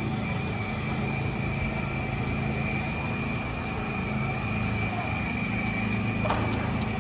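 City street traffic: a large vehicle's engine running steadily close by, with a steady high tone over it and a short knock about six seconds in.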